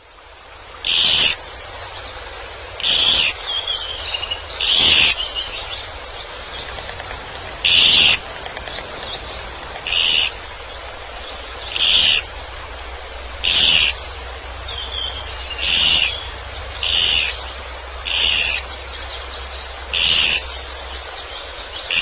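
Woodpecker calling, repeating a short, high call every second and a half to two seconds, with softer chattering notes between.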